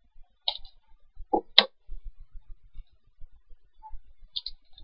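Scissors cutting open a small blind-box package, with the packaging handled in the hands: a few sharp clicks and snips, the loudest about a second and a half in and another near the end, over faint low knocks of handling.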